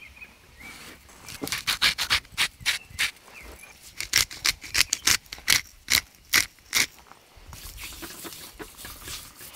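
Seasoning being sprinkled and worked onto thick raw steaks on a cutting board: an irregular run of crisp ticks, about four a second, with a short pause near the middle, stopping about seven seconds in.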